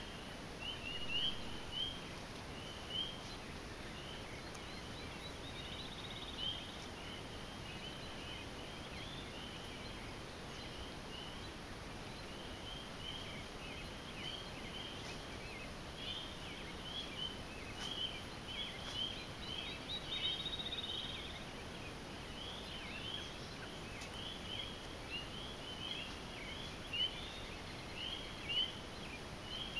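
A steady outdoor chorus of short, high peeping calls, many overlapping, with a brief buzzy trill about six seconds in and again about twenty seconds in, over a faint steady hiss.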